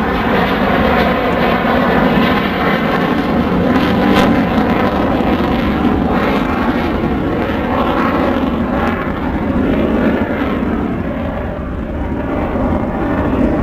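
Lockheed U-2 reconnaissance jet's single turbofan engine at takeoff power: a loud, steady rush of engine noise with a faint whine over it, easing slightly near the end.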